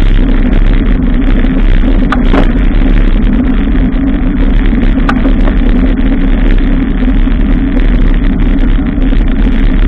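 Steady loud rushing noise of a bicycle ride, with a deep rumble under it, most likely wind and road noise on the ride camera's microphone. Two short clicks or rattles come about two and five seconds in.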